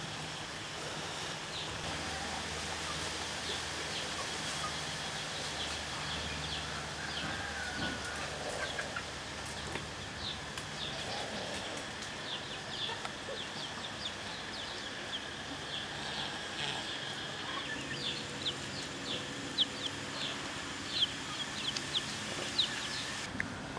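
Farmyard ambience: chickens clucking and small birds chirping again and again, over steady background noise.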